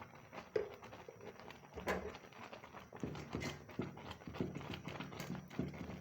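Spoon stirring porridge in a cooking pot and knocking against its sides: a few separate knocks, then a steady run of about two to three knocks a second from about halfway through.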